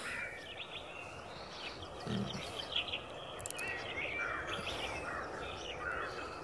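Small birds chirping over a steady outdoor background hiss, with a low thump about two seconds in.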